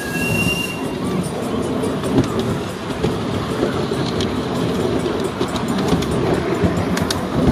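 Large model train running along its track: a steady rumble with irregular clicks from the wheels on the rails, and a brief high tone at the very start.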